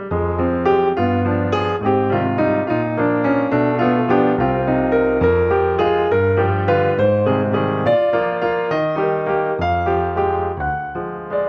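Background piano music: a lively tune of quick notes over a steady bass line.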